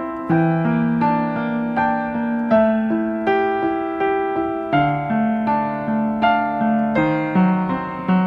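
Background music: a piano or electric piano playing a gentle melody with chords, notes struck about twice a second.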